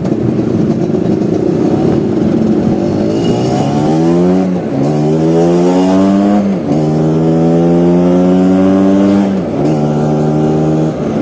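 Vespa scooter engine accelerating while ridden, its pitch climbing and then dropping sharply at each of three gear changes before settling to a steady run.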